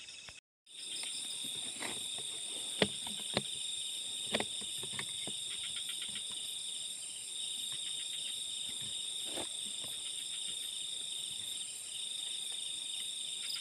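Night insect chorus, crickets chirring steadily in a high-pitched band, starting after a short gap in the sound just under a second in. A few sharp clicks and knocks stand out over it, the loudest about three seconds in.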